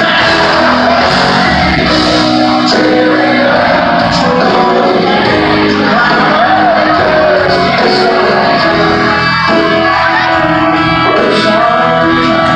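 Live country band and singer performing in a large hall, with shouts from the crowd.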